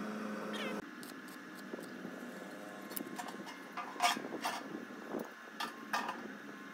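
Sheet-metal stove box and square steel-tube legs clinking and knocking as the legs are handled and set in place, several sharp knocks over a few seconds. A steady hum stops about a second in.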